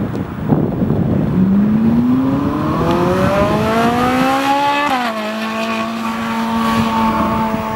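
A car engine accelerating away, its note rising steadily for a few seconds. About five seconds in the pitch drops sharply at an upshift, and the engine then holds a steady note.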